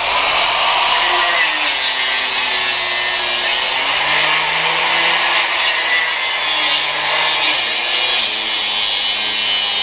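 Small corded angle grinder cutting through the motorcycle's metal exhaust pipe, running steadily under load with its pitch wavering slightly as the disc bites.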